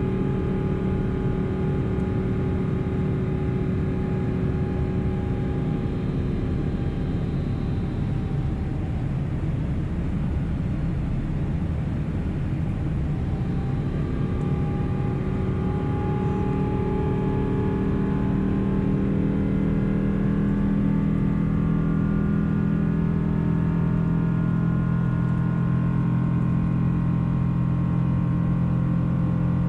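Engine noise of a Boeing 777-200 heard inside the passenger cabin: a steady low rumble with several engine tones that dip slightly in pitch about a quarter of the way in and rise again past the middle, the drone growing stronger near the end.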